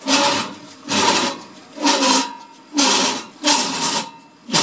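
Two-post car lift's hydraulic power unit run in short jogs: six brief bursts, roughly one a second, as the hanging saw head is inched into position.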